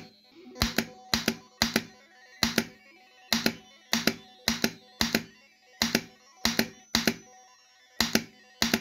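Pinball slingshot solenoid fired about a dozen times at irregular intervals. Each firing is a sharp double clack of the plunger.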